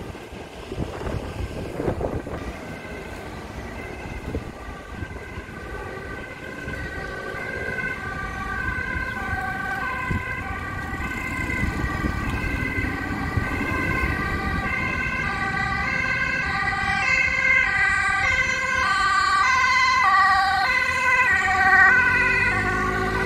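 Emergency-vehicle siren stepping back and forth between pitches, growing steadily louder, over a low rumble of street traffic.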